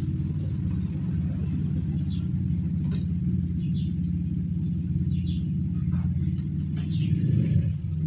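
A steady low mechanical hum, with a few faint light clicks as multimeter probes are pressed against a fan's wire connector.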